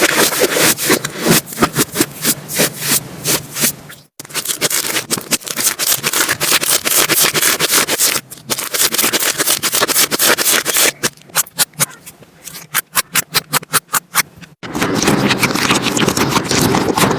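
Slime being squeezed and kneaded by hand, crackling and clicking densely, with several abrupt cuts between clips. In one stretch it is pressed rhythmically, popping about four times a second.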